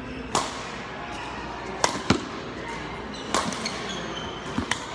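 Badminton racket strings hitting a shuttlecock: about five sharp cracks at uneven spacing, two of them close together a couple of seconds in, echoing in a large hall.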